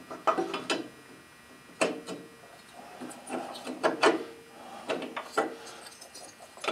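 Cylinder head of a single-cylinder flathead engine being worked down over its studs onto a new head gasket: a series of sharp metal clinks and knocks with light scraping between them.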